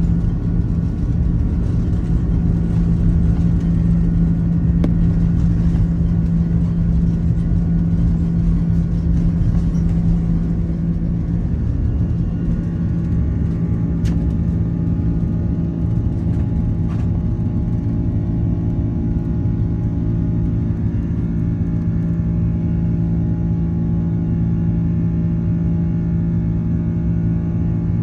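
Steady jet engine drone heard inside the cabin of an Airbus A330-300, a low rumble with a constant hum from its Rolls-Royce Trent 700 engines.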